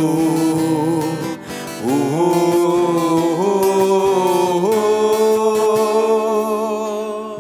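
Sinhala patriotic song performed live by a male singer with acoustic guitar: the voice holds long, wavering notes without words, stepping up in pitch about two and three and a half seconds in, over the guitar. The sound eases off near the end.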